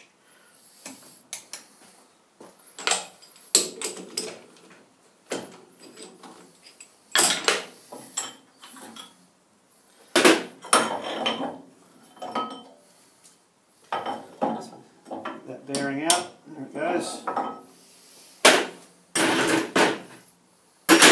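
Steel-on-steel clanks and clinks, many separate knocks, some ringing briefly: a steel setup bar being slid out of the bore of a cast-iron part clamped on a lathe fixture plate and tools being handled around it.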